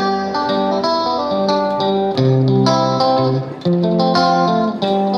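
Background music: a plucked guitar tune with a steady rhythm.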